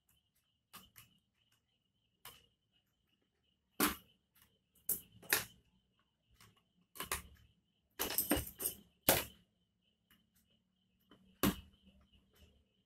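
Sharp clicks and taps of plastic speedometer-cluster parts being handled and pried apart by hand. They come in an irregular run of knocks, thickest in the middle, with one more near the end.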